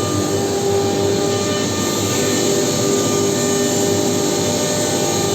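Steady drone of workshop machinery beside a CNC router, holding a few constant tones over a continuous rushing noise.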